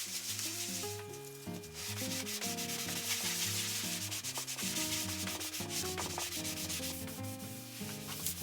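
Household scouring pad scrubbing a teak tabletop with soapy water: a continuous scratchy rubbing made of rapid back-and-forth strokes, with light background music.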